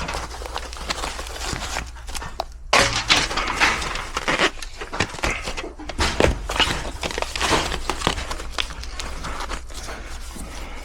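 Sheet-metal ductwork being handled and fitted by hand: irregular scrapes, rattles and knocks of thin metal.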